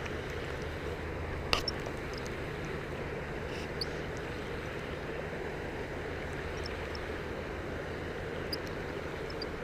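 Steady outdoor background noise with a faint hum, broken by one sharp click about one and a half seconds in and a few faint ticks later.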